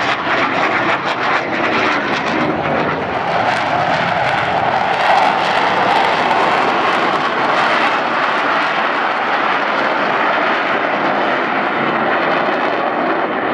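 Blue Angels F/A-18 Hornet fighter jets flying past, their jet engines making a loud, steady rushing noise that holds without a break.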